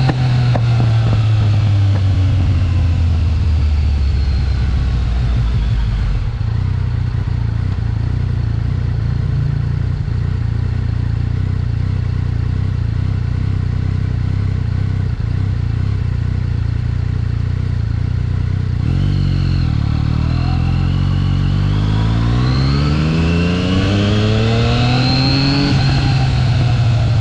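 Yamaha XSR900's inline three-cylinder engine heard on the move: the revs drop at first and hold steady, then climb for several seconds about two-thirds through as the bike accelerates, easing off near the end.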